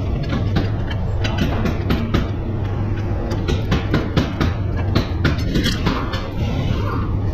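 Ratchet and socket working the bolts of a car's rear wheel hub knuckle: irregular metallic clicks and clinks, thickest about three to six seconds in, over a steady low hum.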